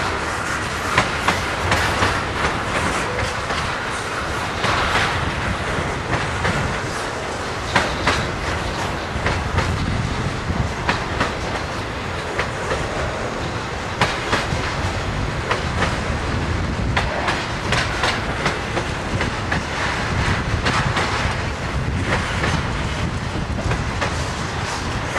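Union Pacific intermodal freight train, flatcars loaded with truck trailers, rolling steadily past. Its wheels clack irregularly over the rail joints under a continuous rumble.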